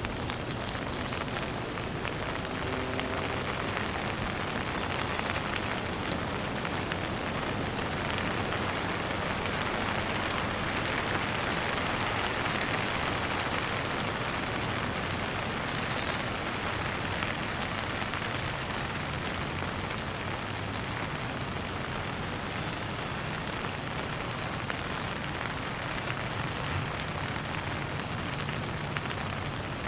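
Steady rain falling, an even continuous hiss of raindrops.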